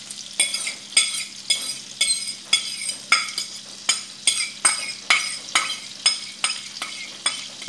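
Metal fork striking and scraping a ceramic plate about twice a second, knocking grated carrot off into a bowl; each stroke is a sharp clink with a brief ring.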